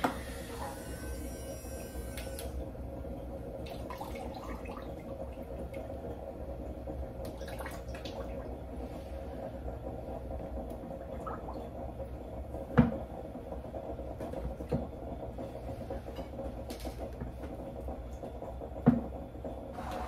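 Water sloshing and small knocks in a bag of water as a battery-powered submersible shower pump is handled, over a steady low hum. Two sharper knocks come about 13 and 19 seconds in. The pump is not yet delivering water.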